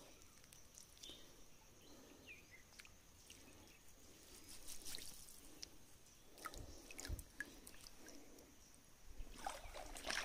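Faint water sloshing and trickling in a shallow stream, with a few brief splashes about halfway through and a few light clicks.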